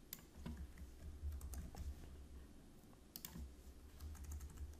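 Faint computer keyboard keystrokes, scattered single taps with a quick cluster about three seconds in, over a low steady hum.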